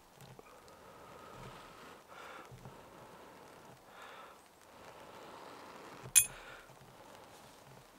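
Soft breaths blown gently several times onto a glowing char cloth ember to keep it alight, with one sharp metallic click about six seconds in.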